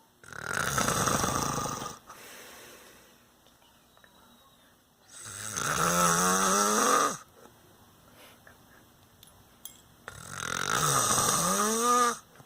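A man snoring: three long snores about five seconds apart, the second and third each ending in a rising, pitched tone.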